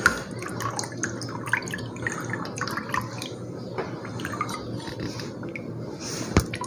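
Water mixed with compressor oil pouring and dripping from a refrigerator compressor's pipe stub into a plastic tub of liquid, splashing steadily. One sharp knock comes near the end.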